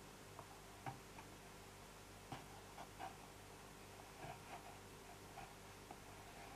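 Kitchen knife cutting into a crisp green apple: faint, scattered small crunches and ticks as the blade works through the flesh.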